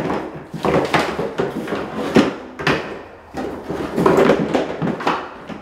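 White plastic shelf-bracket parts and packing paper being handled in a cardboard box: irregular knocks, scrapes and rustles as pieces are shifted and sorted.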